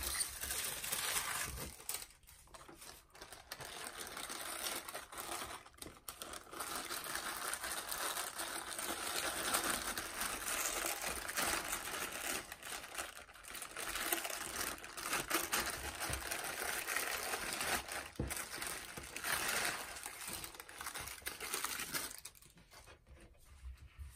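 Thin plastic wrapper sheets and a clear plastic bag crinkling and rustling as hands unwrap a pair of goalkeeper gloves, in uneven stretches with a few short pauses. The crinkling dies away about two seconds before the end.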